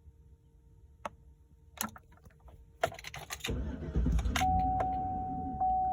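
Clicks and a jangle of keys as someone gets into a truck, then a low rumble, and a steady electronic tone that begins about a second later.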